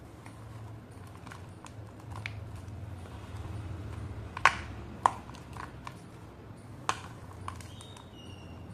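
Fingers scooping and squeezing damp slate chips and powder in a plate: soft crunching and crumbling with scattered small clicks, three sharp louder clicks through the middle as pieces knock together.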